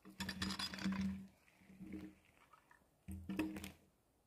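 A man grunting with effort three times while heaving a log over with a log-rolling tool. The first grunt is the longest.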